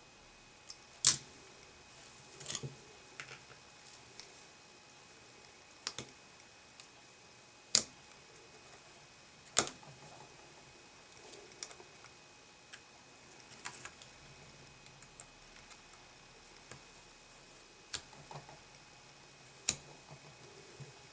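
Scattered sharp clicks and small taps of hand tools working on a small molded plastic headphone plug, cutting and prying at it, at uneven intervals; the loudest click comes about a second in.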